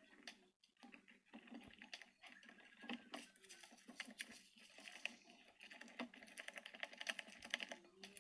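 Silicone spatula stirring sticky, foamy slime in a glass bowl: faint, rapid sticky clicks and crackles.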